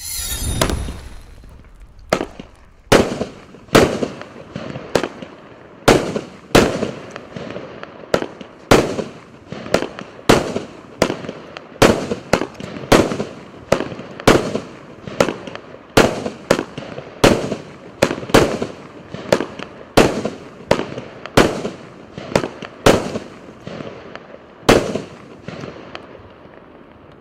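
A 16-shot, 30 mm-calibre consumer firework cake (Klasek 'Roar of the Beast') firing: a hissing flare as it lights, then a rapid series of sharp bangs, one to two a second, over a continuous crackling haze. The shots die away near the end.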